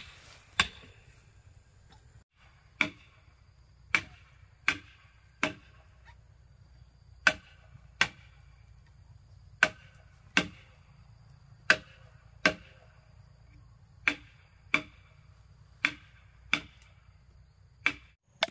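Sharp blows of a hand tool on timber, struck at a steady working pace, mostly in pairs under a second apart, each with a short ringing tail.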